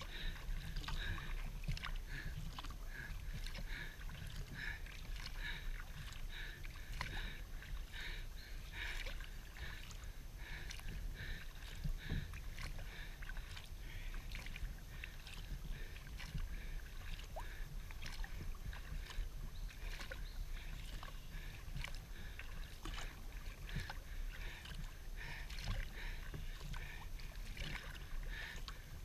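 Kayak paddle strokes: water splashing and dripping off the paddle blades in a steady rhythm, a burst every second or less, over a low rumble.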